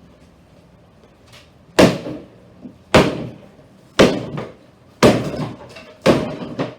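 An axe striking a 1970s console stereo cabinet: five heavy blows, about one a second, each a sharp crack that dies away quickly.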